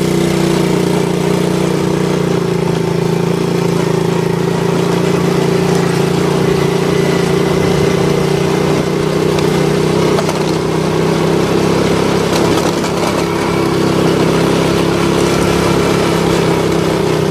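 Quad bike engine running at a near-steady pitch while being ridden along a dirt track, heard from the seat, over a continuous rushing noise.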